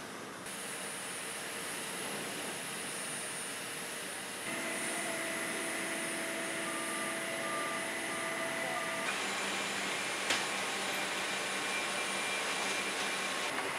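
Airport ramp noise: a steady rush and whine of aircraft and ground equipment, changing abruptly twice, with a short repeated beep in the middle and a single click later.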